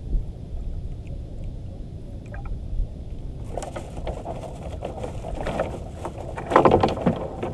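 Water splashing and sloshing around a small wooden banca, over a low wind rumble. A louder stretch of irregular splashing and knocking starts about three and a half seconds in and is loudest near the end.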